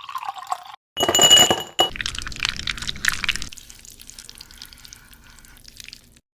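Kitchenware clinking: dishes and utensils knocking together, with one loud ringing clink about a second in, followed by lighter clicks and then a faint steady hum.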